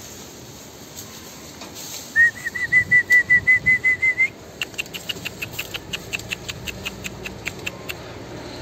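A bird calling: a fast trill of about sixteen even, high chirps over two seconds, then a slower run of shorter, sharper chirps that fades away.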